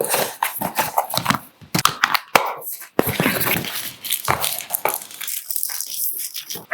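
Phone retail box being unboxed by hand: packaging crinkling and tearing, with many sharp taps and knocks as the box and its parts are handled.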